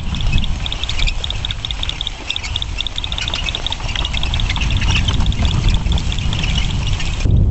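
Wheeled earth-resistance survey cart with spiked metal wheels being rolled over dry grass: a noisy rattling over a steady low rumble, with a quick run of high ticks through the first few seconds.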